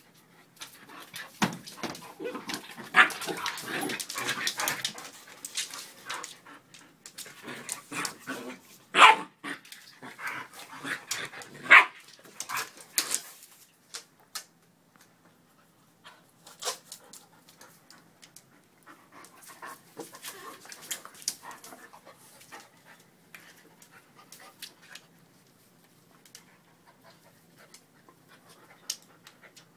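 An adult dog and a puppy play-fighting: panting, scuffling on a wooden floor and occasional sharp barks, busiest and loudest in the first half, then quieter and sparser.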